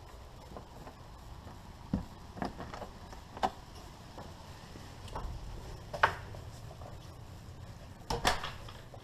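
Several scattered light knocks and clicks of handling, the loudest about six seconds in and another cluster just after eight seconds.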